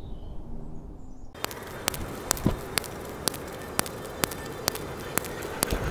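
Artemis M22 .177 PCP air rifle being shot over a chronograph in quick succession: sharp cracks about two a second over a steady hiss that starts suddenly after about a second of quiet. The pace is too quick for real shooting, so the shot string is fast-forwarded.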